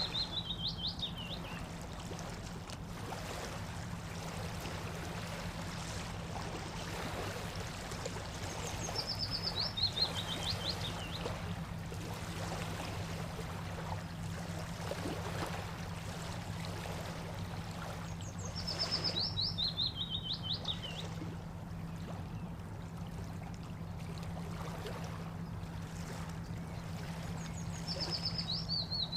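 Steady running water at a stream bank with a low continuous rush. A songbird repeats the same short, fast trill that falls in pitch, about every nine to ten seconds: near the start, twice in the middle and again near the end.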